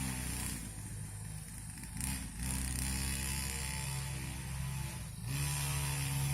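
Small two-stroke brush-cutter engine on a child's mini grasstrack bike running at high revs. It eases off for about a second and a half, then picks back up, with another brief dip near the end.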